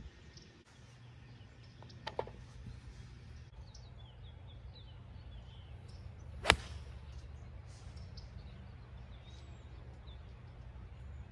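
A golf club strikes a ball off the tee with one sharp crack about six and a half seconds in, the loudest sound here. A fainter click comes about two seconds in. Under both run a low steady wind rumble and faint bird chirps.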